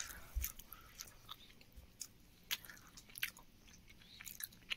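Someone chewing a mouthful of siddu, a soft steamed stuffed wheat bun: faint, irregular mouth clicks and small smacks.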